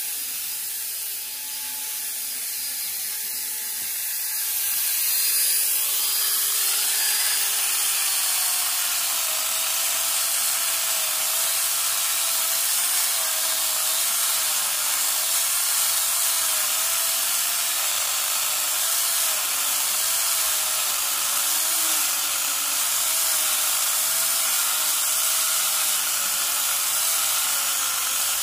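Maktec angle grinder fitted with a Bestools 12-inch chainsaw converter attachment, running at speed with its chain cutting into a log. A few seconds in it gets louder, and the motor's whine drops and wavers as the chain bites into the wood.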